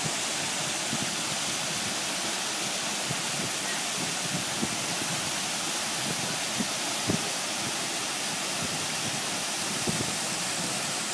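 Waterfall: a steady rush of white water pouring down over rock steps.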